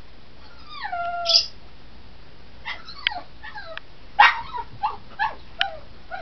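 Pug whining and yipping: one drawn-out falling whine about a second in, then a run of about six short, high, falling yelps, the loudest just past the middle.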